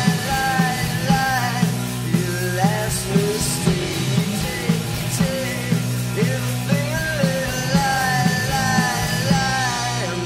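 Rock band playing live: a man singing over drum kit and electric bass, with a steady beat of about two drum hits a second.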